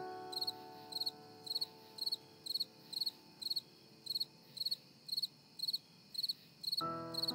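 Soft background music of sustained chords under a high, cricket-like chirp that repeats about twice a second, each chirp a quick cluster of pulses. The chords fade slowly, and a new chord comes in near the end.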